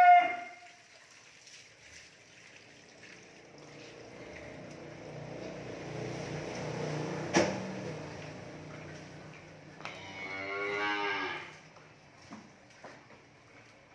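Cattle mooing: a loud moo dies away at the very start, then a long low moo swells in the middle, and a higher moo that bends up and down comes about ten seconds in. A single sharp click sounds in the middle of the long moo.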